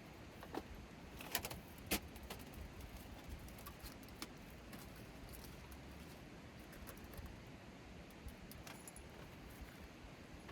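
Scattered light clicks and clinks of small hard objects being handled, a few sharper ones in the first two seconds and sparser ticks after, over faint background noise.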